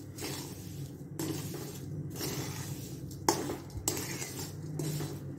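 A dry, crumbly laddu mixture of roasted wheat flour, fried edible gum and sugar being stirred and scraped around a plate. A few sharp clinks and knocks stand out, the sharpest about three seconds in.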